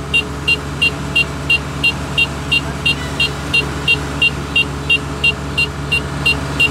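Kubota ER448 combine harvester's diesel engine running steadily, with a high electronic beep repeating about three times a second over it.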